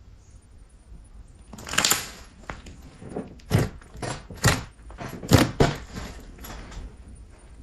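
Glossy slime being squished and pressed by hand. There is a longer squelch about two seconds in, then several short, sharp squelches in quick irregular succession.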